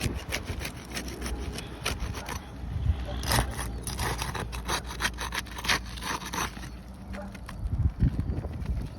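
Irregular scraping and crackling of asphalt shingles being worked loose, their sealant strips being broken to unseal them, with a few sharper scrapes along the way.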